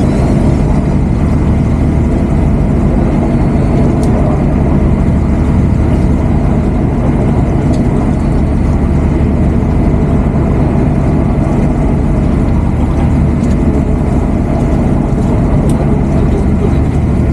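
An engine aboard a fishing boat running steadily at an even speed, a constant low drone with a few faint ticks.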